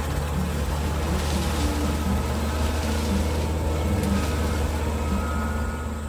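Animated combine harvester's engine sound effect, a steady deep running hum as the machine drives along, easing off near the end.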